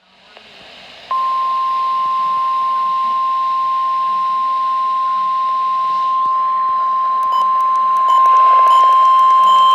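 NOAA Weather Radio warning alarm tone: a single steady high tone that comes on about a second in and holds, over radio hiss. It is the alert signal that comes before a warning broadcast, here a tornado warning.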